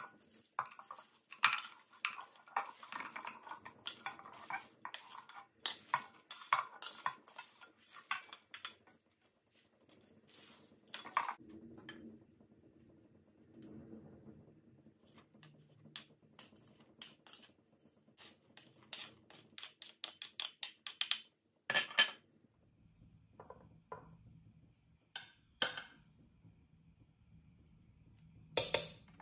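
Kitchen utensil clatter as food is tipped from a plate into a pot with a wooden spatula and spices are spooned in with a metal spoon: a quick run of clicks and knocks on dish and pot, busiest in the first nine seconds, then sparser, with sharper clinks about two-thirds through and near the end.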